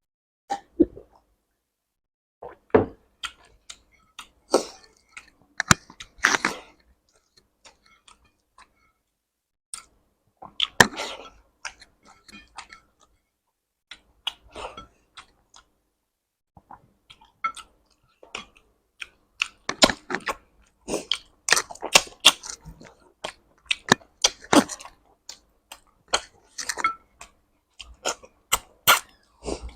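Close-miked eating sounds of a person chewing a rice and curry meal: irregular mouth clicks and short smacking bursts, with brief pauses between mouthfuls, growing busier in the second half.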